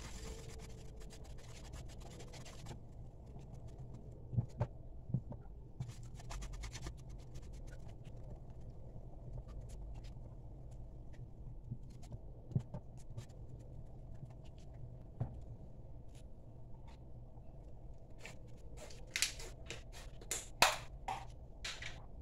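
Wooden spoon stirring a thick homemade soap mixture in an aluminium pot, with soft scraping and occasional light knocks against the pot. Near the end there are several louder, sharper clacks of the spoon against the pot.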